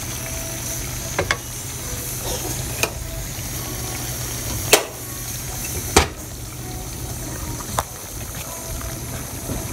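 A wooden spatula stirring dry-fried mutton pieces in a steel pot, knocking sharply against the pot several times, over a steady low sizzle of the meat in its oil.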